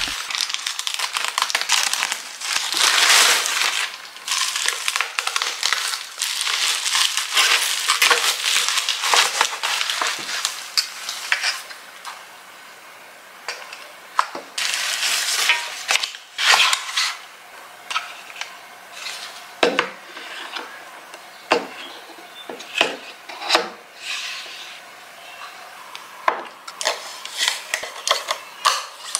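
Plastic courier mailer bag crinkling and rustling as it is opened, dense and busy for about the first twelve seconds. After that come sparser crinkles and sharp clicks as a clear plastic pen holder and its wrapping are handled and the protective film is peeled.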